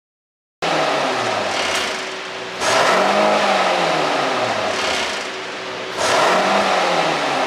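Mercedes-Benz GLS580's twin-turbo V8 exhaust, revved in two blips, the pitch rising and falling each time, with a few brief crackles as the revs drop. These are the pops of an aftermarket ECU pop tune.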